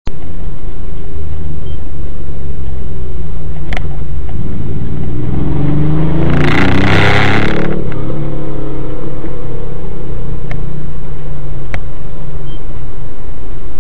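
Steady road-vehicle rumble with an engine note. About halfway through a vehicle passes close by: a loud rush, then its engine note falls in pitch as it goes away. A few short sharp clicks are scattered through.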